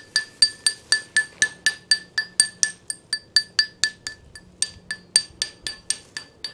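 Hammer tapping rapidly on a concrete slab to sound it, about four to five taps a second, each with a bright metallic ring, with a brief pause a little past the middle. The clear, ringing taps mark sound concrete left after the hollow, weakened concrete was removed; the owner calls it pretty solid.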